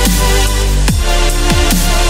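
Background electronic music with a heavy, sustained bass and sharp falling pitch sweeps about once a second.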